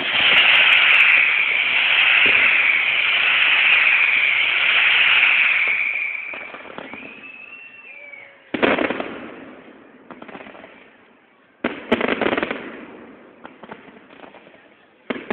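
Fireworks: a loud hissing, whistling rush for about six seconds, a whistle sliding down in pitch, then three sharp bangs about three seconds apart, each trailing off into crackling.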